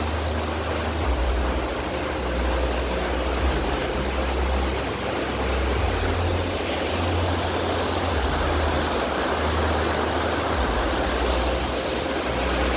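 Whitewater river rushing steadily, with an uneven low rumble underneath.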